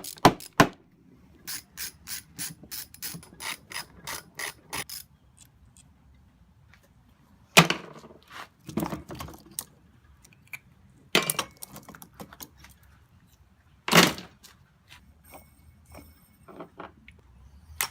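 Ratchet wrench clicking in a quick run of about four clicks a second, then several separate loud metal clanks a second or more apart.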